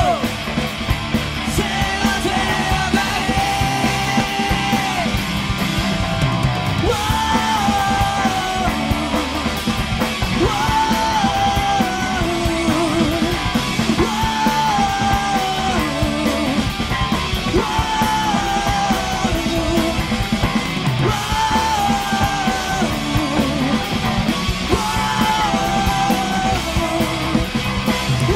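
Live rock band playing, with electric guitar and drums under a male lead singer; a sliding melody line repeats about every two seconds.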